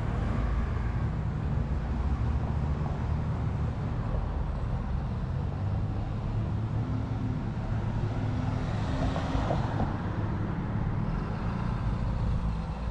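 Street traffic: a steady low engine rumble from motor vehicles close by, with a swell of passing-car noise about nine seconds in.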